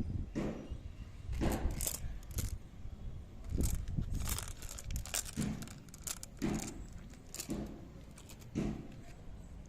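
Packaging and small toy pieces being handled: irregular crinkling and tearing rustles mixed with light clicks and knocks, a dozen or so short strokes with brief pauses between.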